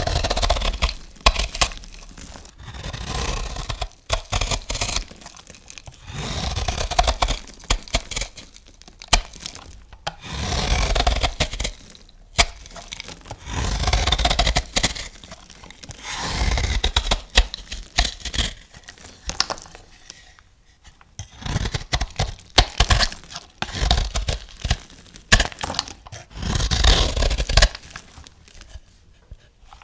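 A knife cutting through bar soap in repeated crisp, crunchy strokes, each one or two seconds long with sharp cracks as pieces break off, about ten strokes in all.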